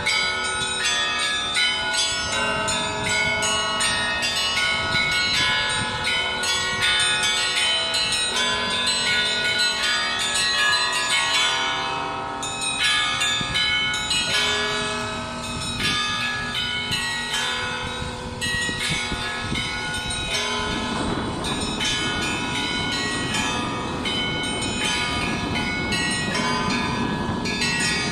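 Russian church bells (колокольный звон) being rung in a dense, continuous peal, many bells of different pitches struck over one another. From about twenty seconds in, a rushing noise joins beneath the bells.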